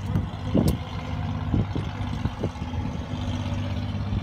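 Fishing boat's engine idling steadily, a low even hum, with a few short knocks over it.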